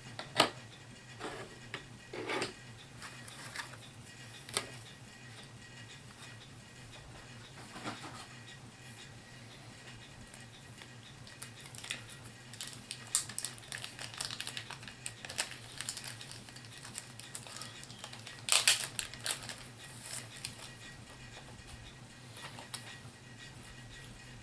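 Plastic HeroClix miniatures and their booster packaging being handled on a tabletop: scattered light clicks and rustles, busiest in the second half and loudest about two-thirds of the way in, over a low steady hum.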